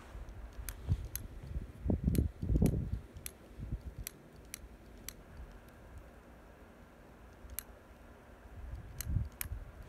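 A dozen sharp, scattered clicks at uneven intervals, with a few low thuds about two to three seconds in and another near the end, from someone crouched in the snow handling a fireworks setup.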